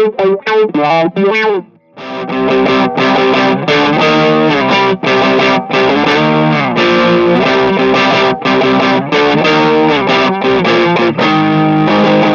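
Electric guitar, a 1979 Gibson Les Paul Deluxe, played through a Stone Deaf Trashy Blonde distortion pedal. Short choppy notes with a sweeping, wah-like filter come first, then a brief break about two seconds in. After that come sustained distorted notes and chords with a few string bends.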